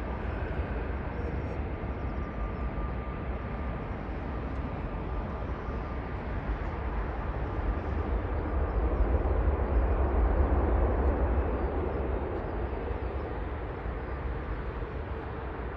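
Jet airliner on final approach to land. Its engine noise swells to a peak about ten seconds in and then eases off, over a steady rumble of strong wind on the microphone.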